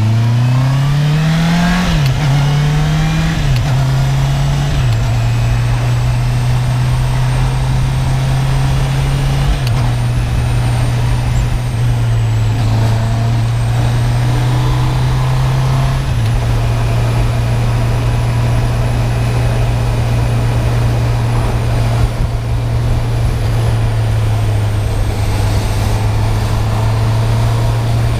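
Honda CB650R's inline-four engine with its stock exhaust, under way: it revs up and shifts up quickly through several gears over the first five seconds, then holds a steady cruise with a few small changes in engine speed.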